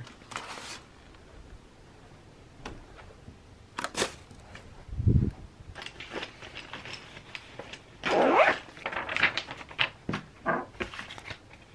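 Desk clutter being handled: light knocks and clicks of pens and small objects, a dull low thump about five seconds in, then paper sheets rustling and shuffling in the last few seconds.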